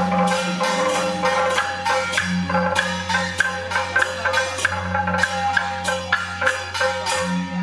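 Temple-procession percussion: gongs and hand cymbals struck in a quick, continuous beat, their metal ringing on between strikes, over a low steady hum.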